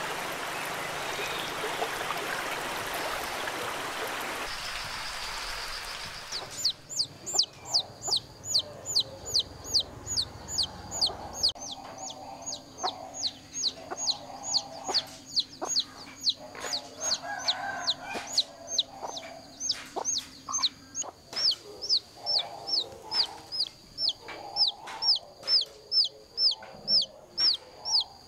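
A steady rushing noise for the first six seconds or so. Then a chick peeping over and over: loud, high peeps that fall in pitch, about two or three a second. Beneath the peeps a hen clucks softly.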